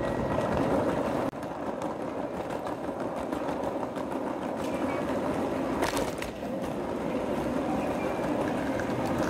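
Ambient noise of a busy train station concourse: a steady general hubbub with indistinct voices, changing abruptly about a second in.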